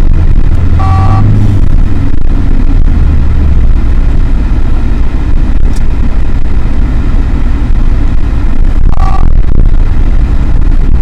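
Steady loud low rumble of a car driving on the road, with two short two-note electronic beeps, one about a second in and another near the end.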